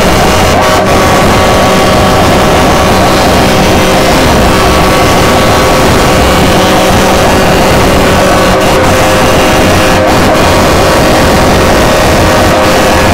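Vehicle engines running loud and steady, held at a constant high pitch for the whole stretch, so loud that the recording is overloaded.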